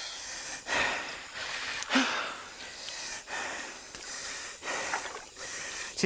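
Heavy, hissing breaths, about one a second, the hard breathing of exhaustion after a struggle with an anaconda.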